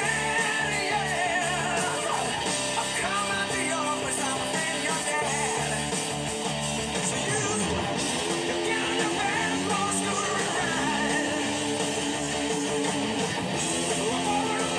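Hard rock music led by electric guitar, playing continuously.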